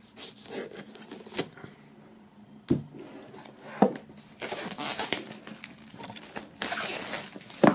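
Plastic shrink-wrap being slit and pulled off a cardboard box: spells of crinkling and rustling, broken by a few sharp clicks and taps.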